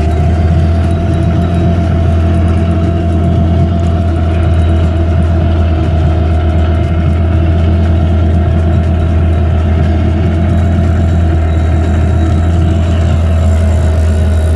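Boat motor running at a steady speed, a loud even drone with a deep hum, while the boat trolls along.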